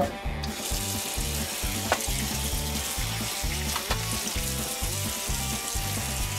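A pull-out kitchen faucet sprayer runs water onto cured beef in a stainless steel pan, rinsing off the cure: a steady spraying hiss that starts about half a second in. Background music with a steady low beat plays underneath.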